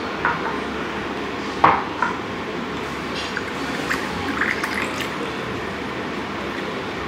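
Ceramic cups knocking on a wooden table a few times, sharpest about a second and a half in, then a drink poured from a ceramic flask into a ceramic cup, a short trickle with small drips for a couple of seconds.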